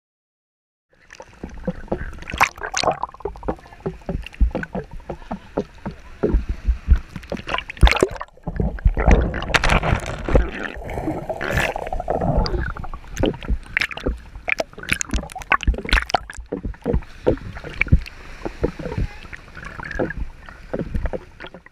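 Shallow surf sloshing and splashing around a waterproof camera housing, with many irregular knocks and bumps. It starts suddenly about a second in.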